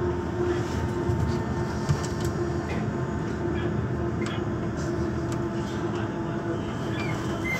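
Class 399 electric tram-train running along the track, heard from inside the driver's cab: a steady running rumble with a constant hum and scattered light clicks.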